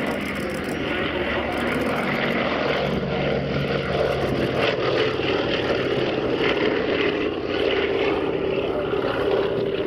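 Boeing B-17 Flying Fortress flying past low, its four Wright R-1820 Cyclone radial engines and propellers droning steadily. The sound grows slightly louder through the pass, and its pitch settles lower in the second half as the bomber goes by.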